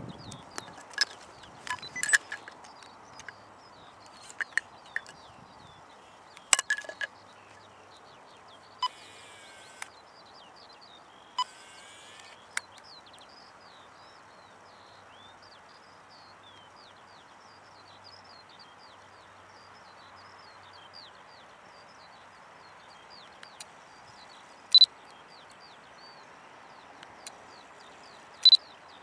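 Camcorder handling noise: several sharp clicks, and two brief whirs a few seconds apart around the middle. Underneath is a steady faint outdoor background with many small, high bird chirps.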